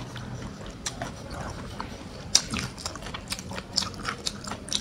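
A man chewing a mouthful of crunchy fried chicken with a crumb coating, up close: irregular crisp crackles of the breading, the loudest a little past halfway.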